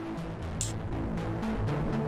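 Mixed music playing back: a bass line over drums, with a cymbal hit about a third of the way in. The bass runs through the MAG Signature Sound Crystal Clear enhancer plugin with its input driven up.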